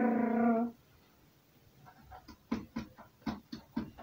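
A voice holds one steady note that stops under a second in; about two seconds in, a spoon starts scraping through cake batter in a plastic mixing bowl in short strokes, about four a second.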